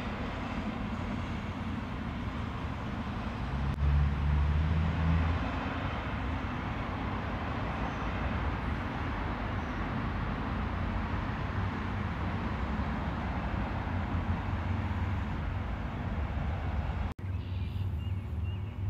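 Steady outdoor background noise, a rumble and hiss of the kind road traffic makes, swelling into a louder low rumble for a couple of seconds about four seconds in. It drops out for an instant near the end.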